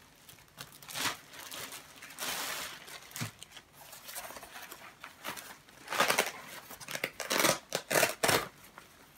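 Clear plastic packaging bag crinkling and rustling as it is handled and opened, in short irregular bursts, with a run of sharp, loud crackles in the second half.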